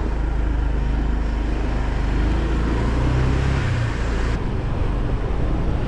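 Motor scooter being ridden: its small engine running steadily under road and wind noise, the engine note rising briefly about three seconds in, then dropping back.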